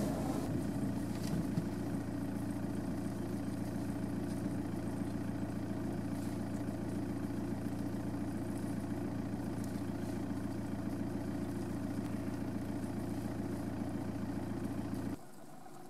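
A vehicle engine idling with a steady, even hum, which stops abruptly near the end.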